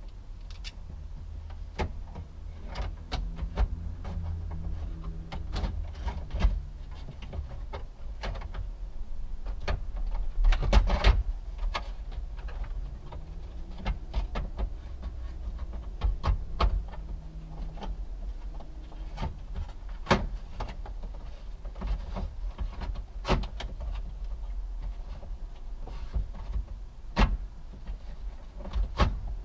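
Hands working on wiring and parts under a stripped car dashboard: irregular clicks, knocks and rattles of plastic and metal, with a busier run of knocking about ten to eleven seconds in, over a low steady hum.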